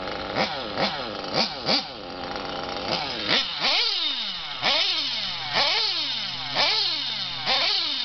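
Engine of a 1:8 scale Losi RC off-road buggy revving in repeated bursts. It gives four short, quick blips, then about five longer revs, each rising sharply in pitch and falling away over about a second.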